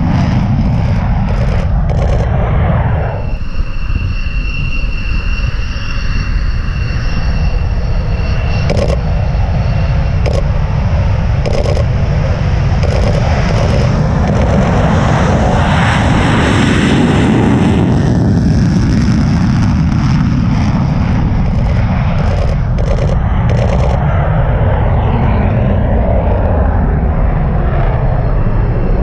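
F-16 jet engine noise from the runway, a loud continuous rumble that swells about halfway through. Irregular camera-shutter clicks sound over it, and a thin steady whine from the lens's image stabiliser is heard in the first few seconds.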